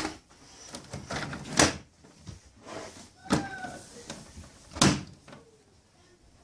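Four sharp knocks or clacks, about a second and a half apart, with rustling handling noise between them.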